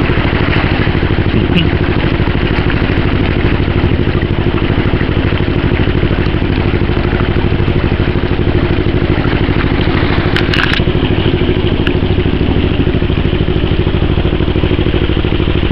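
Narrowboat's inboard engine running steadily under way, a fast even beat of firing strokes under a steady low hum, while it tows a second boat.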